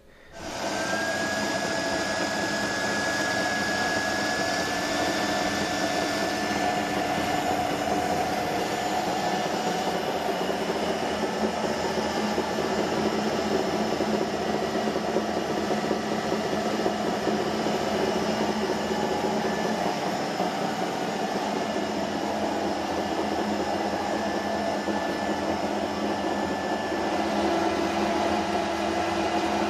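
The alternator rig powering a homemade HHO water electrolyzer runs with a steady mechanical whine and hum. It starts just after the opening, and one high tone in it steps up slightly about four seconds in.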